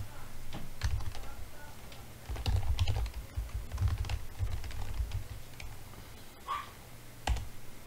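Typing on a computer keyboard: irregular runs of key clicks as a command is typed, over a steady low hum.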